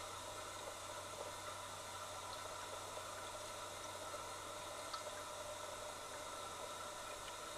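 Steady hiss with a low, even hum and a few faint steady tones, picked up underwater in a fish pond, with a few faint ticks.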